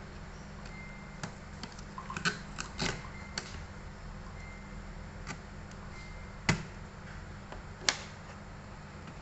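Scattered clicks and taps of a screwdriver and small metal parts as the cooling fan and heatsink are taken off a laptop's processor. There is a cluster of clicks a couple of seconds in and two sharper single clicks later, over a steady low hum.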